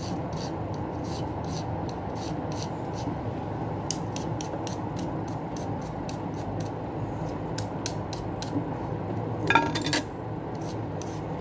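Vegetable peeler scraping strips off a raw carrot in quick repeated strokes, about two a second, over a steady background hum. Near the end there is a brief, louder clatter with a short ring.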